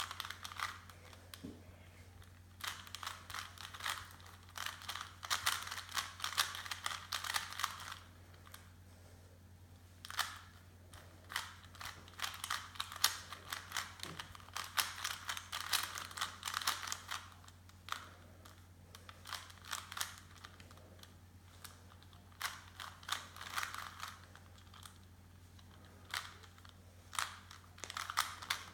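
Plastic Rubik's Cube being solved at speed by hand: rapid clicking and clacking of the layers turning, in bursts of several seconds with short pauses between. A steady low hum runs underneath.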